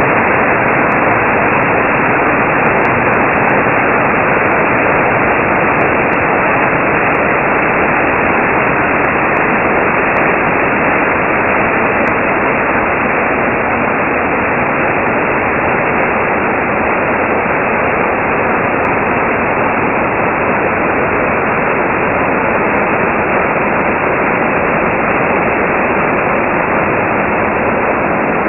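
Mountain stream cascading over rock slabs in a run of small waterfalls: a loud, steady rush of water.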